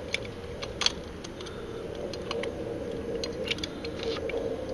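Small metallic clicks and taps of a hex key working a bolt on a motorcycle air-cleaner bracket, with one sharper click about a second in, over a steady background hum.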